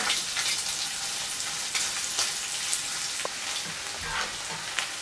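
Sliced onion and strips of smoked pork belly sizzling steadily in rendered fat in a frying pan, with small crackles and the slotted spatula stirring and scraping through them.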